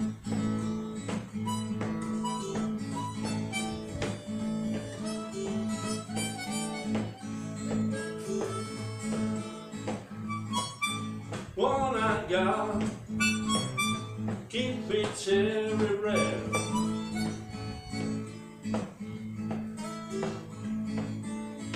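Blues harmonica (harp) playing an instrumental break over a repeating acoustic guitar riff. The harp bends its notes, loudest in two phrases about halfway through.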